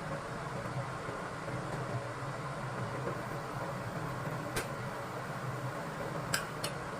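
A steady mechanical hum, like a fan or motor, with three light clicks or clinks in the second half.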